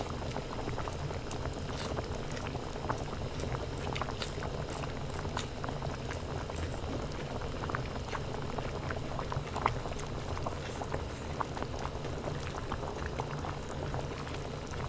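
Broth simmering in a hot pot, bubbling steadily with many small pops and one sharper click about ten seconds in.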